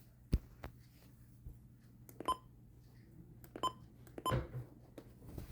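Buttons being pressed on Midland weather radios: scattered plastic clicks, three of them with a short high beep, the last joined by a dull knock.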